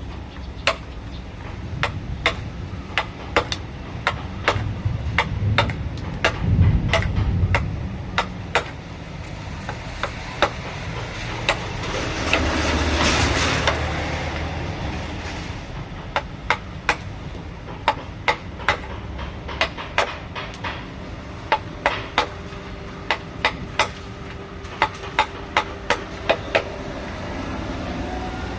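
Mallet striking a wood-carving chisel in irregular sharp knocks, about one to three a second. A rushing noise swells and fades around the middle.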